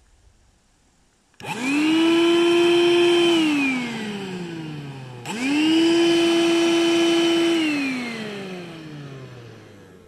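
18-volt cordless vacuum cleaner switched on twice. Each time its motor whines up quickly, runs at a steady pitch for about two seconds, then is switched off and winds down with a falling whine. The first start comes about a second and a half in, the second about five seconds in.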